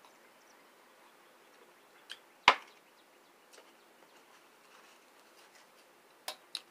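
A plastic cup of water is set down with one sharp knock about two and a half seconds in, a lighter tap just before it. A few small clicks follow near the end as a plate is handled.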